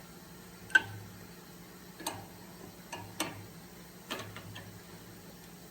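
Metal tool clicks and clinks as a wrench is fitted to and worked on the E32 collet nut of a CNC router spindle: four or five sharp clicks about a second apart, the first the loudest with a short metallic ring.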